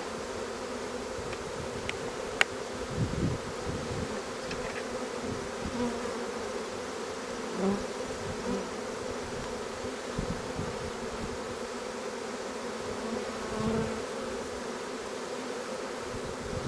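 A swarm of honeybees buzzing steadily as they crowd into a new hive box, a dense even hum. A single sharp click about two seconds in.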